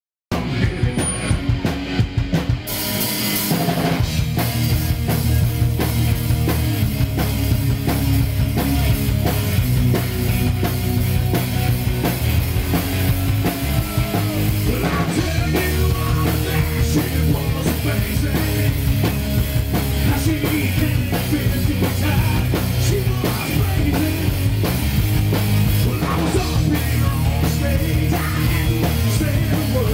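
Live rock band playing: electric guitar, bass guitar and drum kit with a steady beat. The full band comes in about two and a half seconds in.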